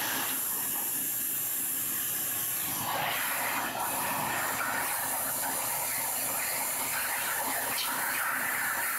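Wet/dry shop vacuum running, a loud steady rush of air. From about three seconds in the rush wavers as a bulldog puts its mouth into the air stream at the motor head.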